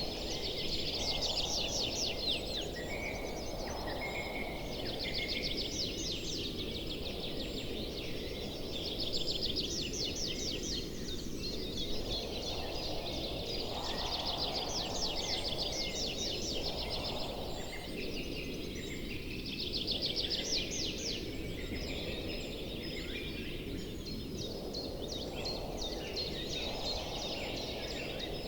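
Outdoor nature ambience: bouts of fast, high trilling calls recurring every few seconds over a steady low background rumble.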